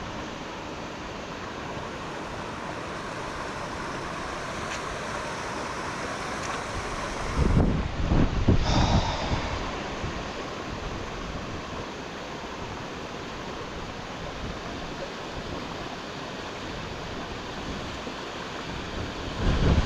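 Steady rush of a fast-flowing river in spate. About a third of the way in, a loud low buffeting on the microphone lasts a couple of seconds, and a shorter bump comes near the end.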